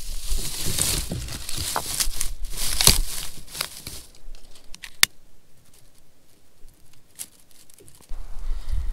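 Crinkling and tearing of fire-starting material for about four seconds, then scattered sharp clicks with one loud snap about five seconds in, as a campfire is started from scratch. Low wind rumble on the microphone at the start and again near the end.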